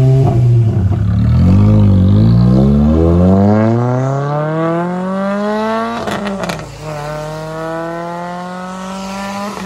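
Renault Clio 3 RS 197 Cup's 2.0-litre four-cylinder, with a catalysed exhaust fitted with a homemade intermediate pipe and silencer, pulling hard away, loud. The pitch climbs steadily, breaks with a crackle at a gear change about six seconds in, then climbs again in the next gear and shifts again at the end.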